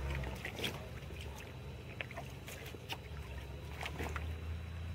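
Someone moving through wet streamside grass and shallow water: scattered rustles, crackles and small splashes, over a low rumble.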